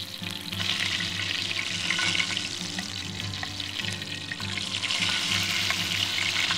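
Bacon-wrapped goose kebabs sizzling steadily in a skillet of hot oil as they are turned with metal tongs.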